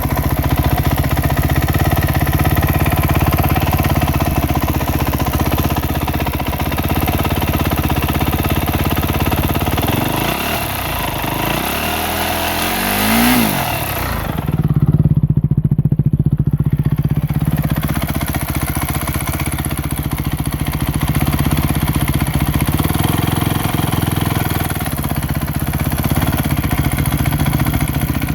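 Honda CRF250R single-cylinder four-stroke engine idling, carrying the ticking noise its owner is asking about. A little before halfway it is revved up slowly once and drops back to idle.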